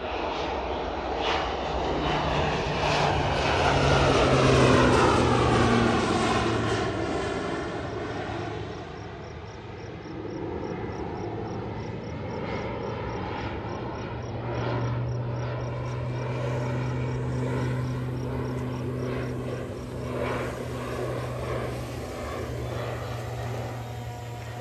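Low-flying single-engine crop-spraying plane flying over, its engine and propeller loudest about four to five seconds in, the pitch falling as it passes. It then runs steadily as it banks and comes around again.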